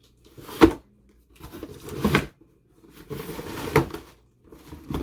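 A sealed cardboard shipping box shaken three times, the unpadded rifle scope and mounts inside sliding and knocking against its walls each time.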